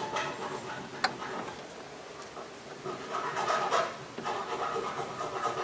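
Small metal clicks and scrapes of a bolt and flat washers being handled and threaded by hand into a steering box frame brace, with one sharp click about a second in.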